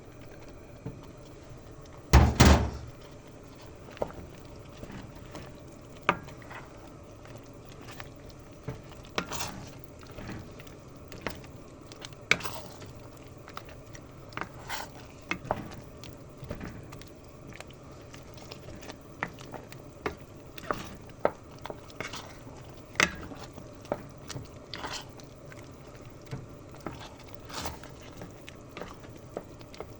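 A pot of beef curry cooking, with a loud clunk about two seconds in and then irregular small knocks and plops about once a second.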